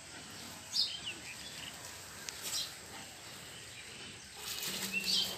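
Birds chirping: a few short, high chirps, some dropping in pitch, over steady outdoor background noise. A low steady hum comes in near the end.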